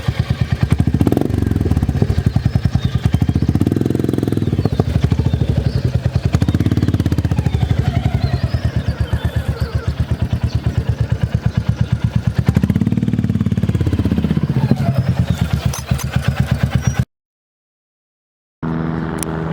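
Motorcycle engine running with a loud, pulsing exhaust, its speed rising and falling several times as the bike is ridden. It cuts off suddenly about 17 seconds in; after a short silence an engine is heard running steadily.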